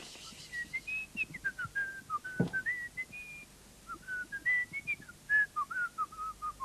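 A person whistling a simple tune through the lips: a quick run of short notes stepping up and down, ending on a longer, lower note.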